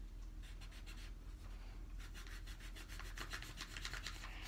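A pencil's rubber eraser rubbing back and forth on notebook paper in quick, even strokes, rubbing out pencil lines.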